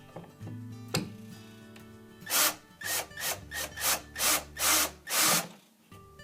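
Screws being backed out of an old thermostat mounting plate: about seven short, rasping bursts in quick succession from about two seconds in, over soft guitar music.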